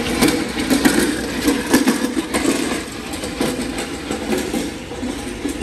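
Plate-loaded push sled's metal frame scraping and grinding over concrete paving as it is pushed, a continuous rough rumble broken by irregular scrapes and knocks.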